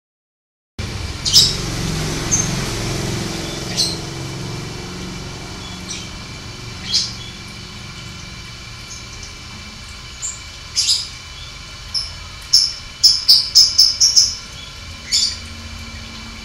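Canary giving short, scattered chirps and call notes, not a full song, with a quick run of about half a dozen chirps near the end, over a steady low background hum.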